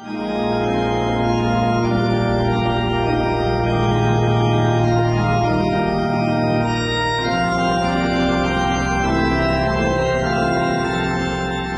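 Organ music: slow held chords over a deep sustained bass note, the harmony shifting every second or two.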